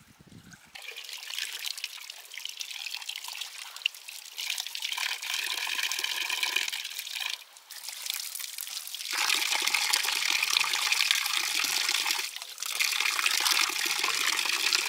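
Water running and splashing steadily, broken off twice for a moment and louder from about nine seconds in.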